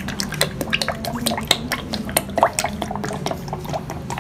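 Engine oil pouring from a plastic oil bottle into a plastic measuring jug, with a rapid irregular splashing as the jug fills, over a steady low hum.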